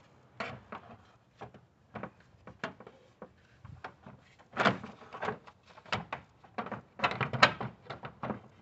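Plastic radiator fan shroud assembly knocking and scraping against the radiator and surrounding parts as it is worked down into the engine bay: a string of short clunks, with longer rubbing scrapes about halfway through and again near the end as it is seated in its lower guides.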